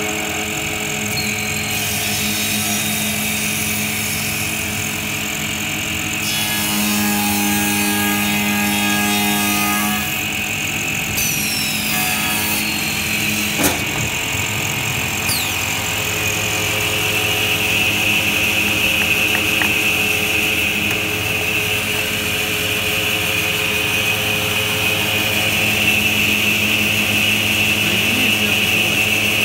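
ShS-3 woodworking tenoning machine running: its motors and cutter spindles give a steady, loud hum and whine. The tone grows stronger and busier for a few seconds about a quarter of the way in, and there is a single sharp knock about halfway through.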